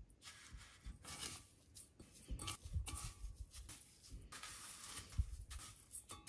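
Dry panko breadcrumbs rustling and crunching in a stainless steel bowl as hands press and scatter them over a piece of chicken, in faint, irregular scrapes.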